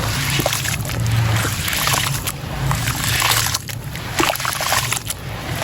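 Gritty sand and stone chunks crumbling into a bowl of water: crunchy crackling with splashing and trickling, in a run of bursts about a second apart.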